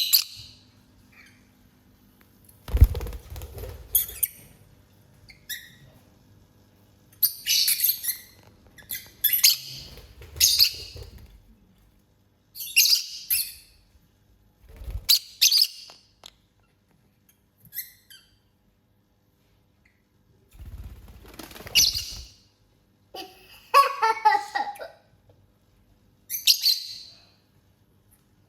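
Lovebirds chirping in short, shrill bursts with pauses of a second or more between them, mixed with a few low thumps.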